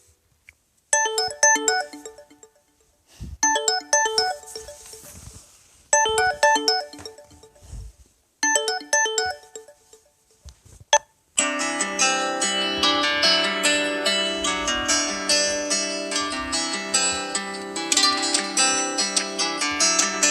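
LG G6 stock ringtones playing: a short bright melodic phrase repeats four times with brief pauses between. About eleven seconds in, a different ringtone begins, a fuller melody that plays on without breaks.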